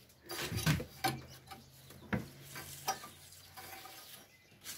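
Dry squirrel-nest grass and fibre being pulled and scraped by hand off the lawn mower engine's cylinder fins: irregular rustling and scratching with a few sharp clicks.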